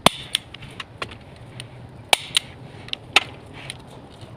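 A series of irregular sharp clicks and knocks, the loudest right at the start and about two and three seconds in.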